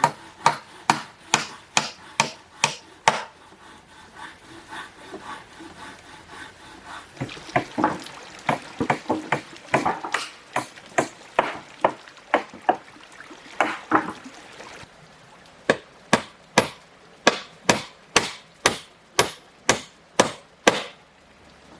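Repeated sharp chopping blows on wood, about two a second, coming in runs, with a softer, busier stretch of strikes in the middle.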